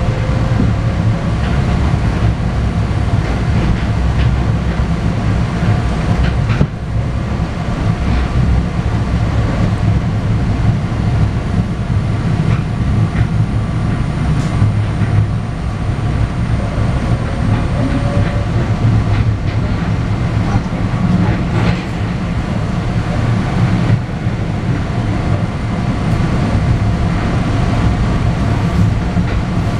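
PATCO Speedline railcar running at speed, heard from inside the car: a steady rumble of wheels on rail with a faint steady whine, broken by a few sharp clicks.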